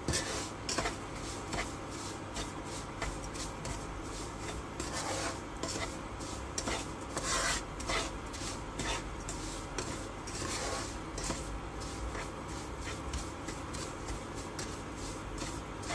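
A wooden spatula scraping and stirring semolina roasting in ghee in a non-stick wok, in irregular scraping strokes, a few of them louder.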